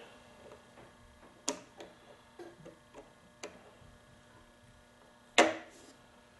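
Screwdriver clicking and tapping against the piston and its pin clip: a sharp click about a second and a half in, several faint ticks after it, and the loudest click near the end.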